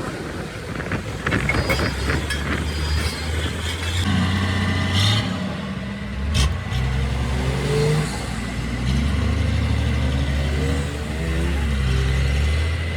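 Truck engine running and revving, its pitch rising and falling several times in the second half, with some knocks and clicks early on.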